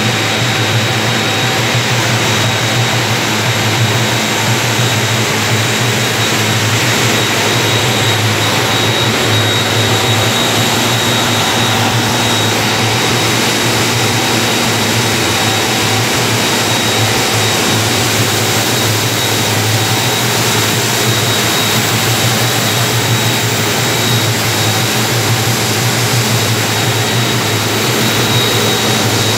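Sugatec 50 cv two-stage continuous grain vacuum running steadily: the even, loud rush of its blower and electric motors, with a low hum and a thin high whine held constant throughout.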